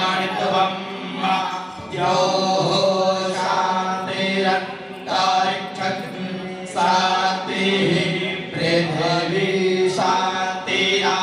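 Priests chanting Vedic Sanskrit mantras in a steady recitation, in phrases about two seconds long with short breaks between them.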